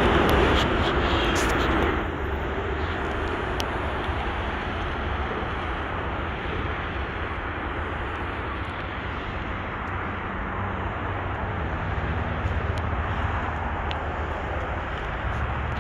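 Steady rumble of freeway traffic, a little louder at first and easing about two seconds in.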